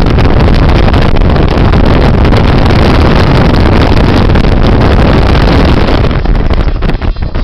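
A car driving fast: a steady, loud rush of engine and road noise mixed with heavy wind buffeting the microphone, easing off near the end.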